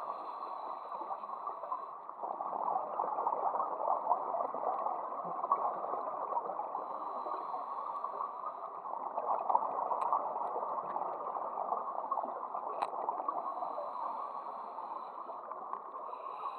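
Scuba diver's regulator breathing and exhaled bubbles heard underwater through the camera's housing: a steady, muffled gurgling rush with a few faint clicks.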